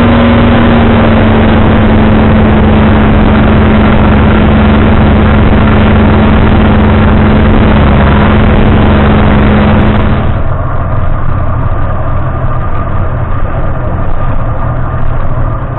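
Small fishing boat's outboard motor running steadily at speed, a loud steady drone mixed with rushing wind and water noise. About ten seconds in it drops to a much quieter low idle.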